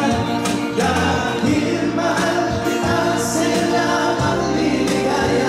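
Live acoustic band playing a Tagalog song: acoustic guitar, bass guitar and cajón under singing voices.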